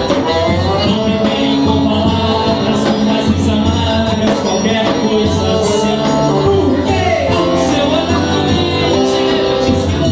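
Live dance-band music with a steady beat, a bass line and sustained melody notes, with singing over it.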